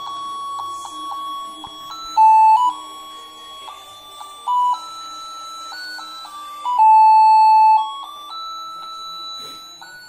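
Battery-powered musical Santa Claus figurine playing a simple electronic melody, one plain beeping note at a time, with a few notes held longer and louder.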